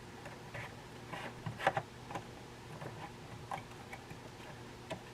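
Scattered light clicks and taps from handling the Drill Doctor XPK sharpener's plastic chuck and alignment port while a drill bit is seated in it, over a faint steady hum.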